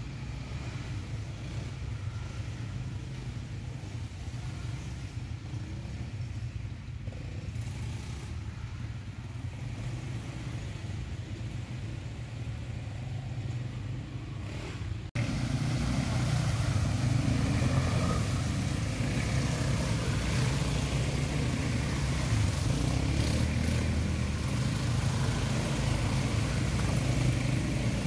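Quad bike (ATV) engines running steadily. About 15 s in, the sound cuts to louder engines working through water, with rushing and splashing as the ATVs drive through a muddy stream.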